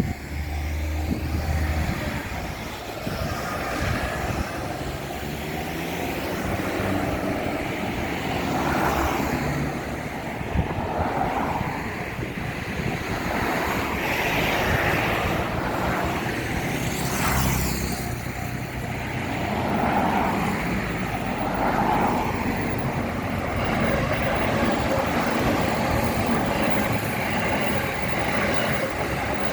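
A train running over a railway level crossing: a steady rumble and wheel noise that swells and fades every few seconds as the cars go by. A level-crossing warning bell is ringing as it begins.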